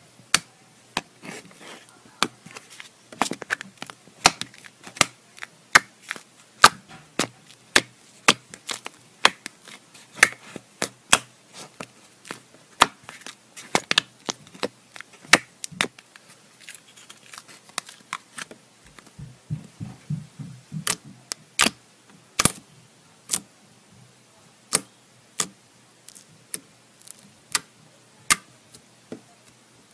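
Fingers poking and pressing clear blue slime, giving an irregular run of sharp clicking pops, a few each second, as air pockets in the slime burst.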